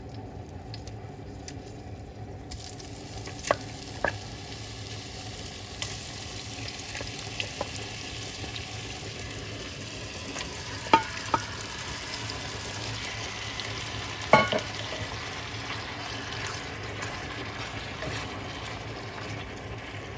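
Chunks of beef sizzling in hot oil as they sauté, the hiss filling out about two and a half seconds in. A few sharp clacks of a utensil on the pot come through it, the loudest about two-thirds of the way through.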